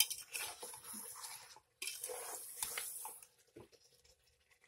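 Metal spoon stirring trotter pieces through thick masala in an aluminium pressure cooker: wet squishing with scrapes and clicks against the pot, in two stretches of about a second and a half each, quieter near the end.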